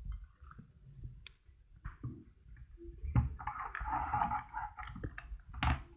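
Hand-cranked meat grinder turned in spurts, forcing pork sausage filling through its stuffing tube into the casing, with a few sharp knocks.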